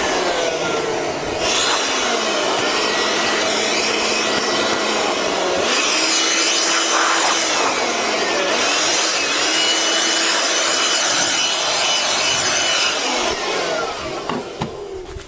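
A handheld power tool running under load against a surface with a rasping rub, its motor pitch dipping and recovering several times before it stops near the end.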